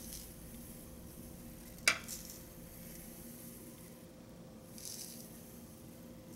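Black and white sesame seeds trickling from a glass bowl onto a parchment-lined baking tray: a faint hiss in a few short spells. One sharp tap comes about two seconds in and another right at the end, over a faint steady hum.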